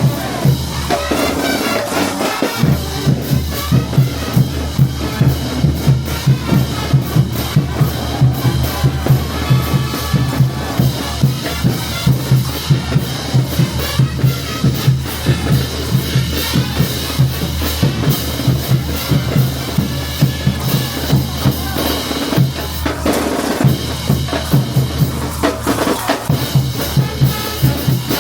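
A street brass band's percussion section, bass drum and snare drum with rim shots, playing a steady marching beat.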